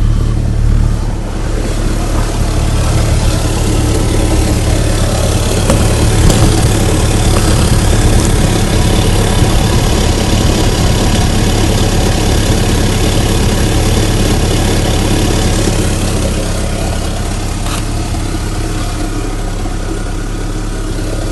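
A 2004 Mitsubishi Lancer Ralliart's four-cylinder engine running steadily at idle with its tailpipe stuffed with a rag, forcing the exhaust out through a hole in the Magnaflow axle-back with a loud hiss: an exhaust leak.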